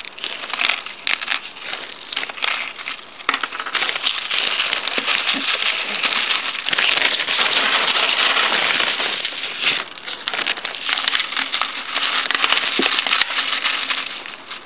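Lumps of porous lava rock clicking and crackling against each other and the plastic pot as handfuls are taken from a plastic bag and pressed in around an orchid's roots. The sound is densest through the middle, then thins to scattered clicks.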